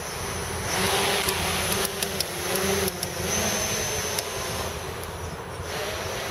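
Armattan CNC 258 quadcopter's motors and propellers spinning up about a second in as it lifts off, then whining steadily with the pitch wavering as the throttle changes.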